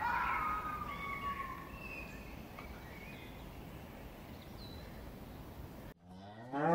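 A few short, high-pitched animal calls over a steady outdoor hiss. The loudest comes right at the start and fades over about two seconds. Near the end the sound cuts out and a cow's moo begins.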